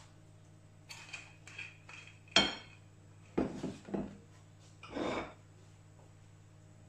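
Glass oil bottle and stainless steel pan being handled: a few light clinks, then one sharp ringing knock about two and a half seconds in, followed by several duller knocks and scrapes.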